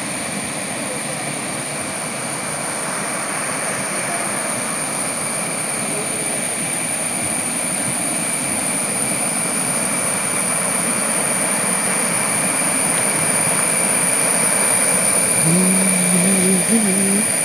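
Swollen river rushing in a strong current over rocks and rapids, a steady rushing noise that slowly grows louder. A thin, steady high-pitched tone sits above it.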